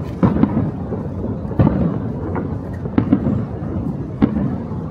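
Aerial fireworks going off: several sharp booms at irregular intervals over a continuous low rumble.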